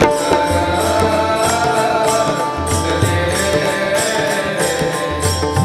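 Marathi devotional abhang music between sung lines: steady held notes under a gliding, wavering melody line, kept by an even percussion beat.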